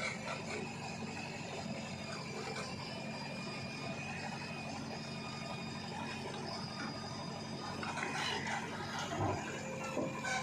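Diesel engine of a JCB 3DX backhoe loader running steadily, with rough scraping and rattling as the bucket works mud; the clatter gets busier near the end.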